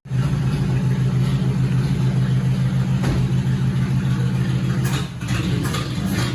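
1954 Ford Customline's freshly broken-in engine running steadily, with a slight drop in level about five seconds in.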